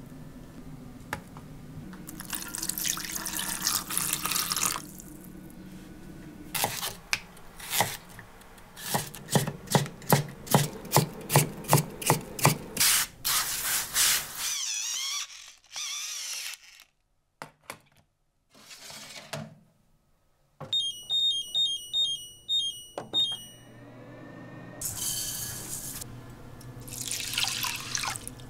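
Kitchen sounds in quick succession. First water is handled in a steel tray. Then comes a fast run of sharp clicks, about three a second. After a short quiet stretch, an induction cooktop plays a short tune of electronic beeps, and near the end broth is poured over rice in a cast-iron pot.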